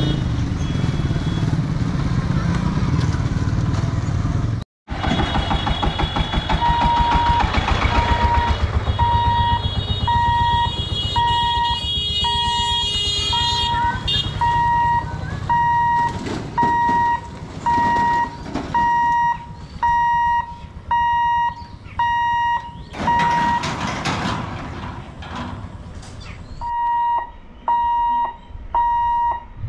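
Motorbikes and e-rickshaws running through a railway level crossing. A few seconds in, the crossing's electric warning hooter starts beeping steadily, about one and a half times a second, as the gate boom is lowered for an approaching train, over the rumble of passing engines.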